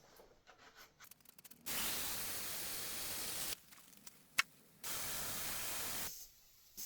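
Hayes pipe freezer aerosol can spraying refrigerant into the freezing jacket around a water pipe, in two steady hissing bursts with a sharp click between them, as the pipe is frozen to stop the water flow.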